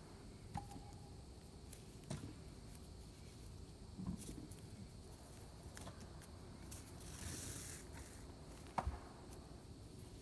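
Hand-sewing a suede leather thimble with a glover's needle and artificial sinew: faint scattered clicks and taps of the needle and fingers on the leather, the sharpest near the end, and a soft rasp of about a second, about seven seconds in, as the sinew is drawn through.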